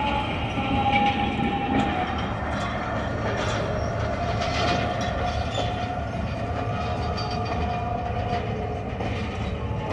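Passenger train rolling along the track, its wheels and cars making a steady running noise with a thin, slightly wavering whine over it.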